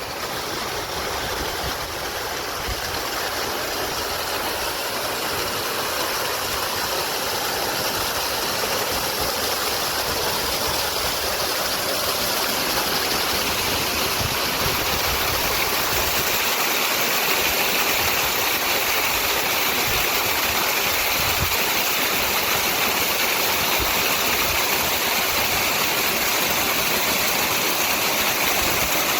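Steady rush of water, as from a waterfall or fast stream, growing gradually louder through the first half.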